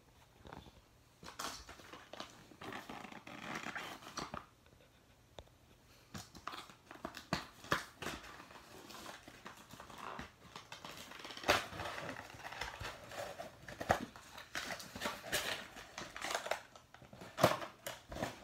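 Box packaging being handled and opened: irregular rustling, crinkling and scraping of cardboard and plastic, with sharp clicks and snaps, starting about a second in and pausing briefly near the fifth second.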